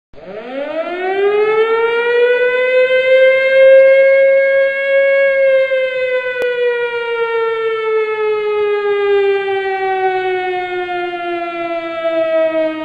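Air-raid siren winding up from a low pitch over about four seconds, holding, then slowly winding down in pitch.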